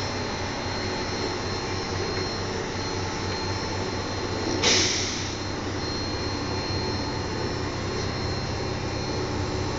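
Steady hum and rumble inside an MP89CC rubber-tyred metro car, with one short hiss about halfway through.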